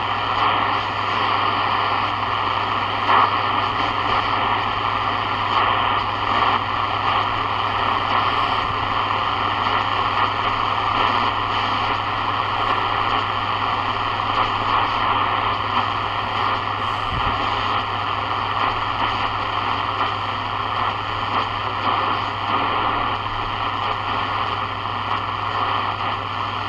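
Sony ICF-7601 portable shortwave radio tuned across an empty shortwave band, its speaker giving a steady hiss of static with a low hum underneath and a few faint crackles. No station comes through: the upper shortwave bands are dead, which the listener puts down to poor conditions or the radio's weakness above 10 MHz.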